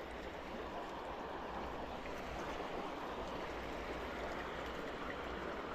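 Fast-flowing creek water running steadily, an even rush of current with no separate splashes.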